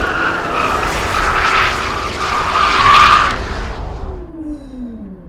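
A car at high speed: loud tyre and wind rush with a steady whine, loudest about three seconds in, then dropping away with tones falling in pitch as it fades.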